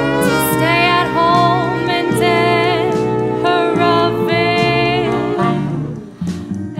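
Big-band saxophone section (altos, tenors and baritone sax) playing a slow, harmonized jazz passage of held chords, easing off about six seconds in.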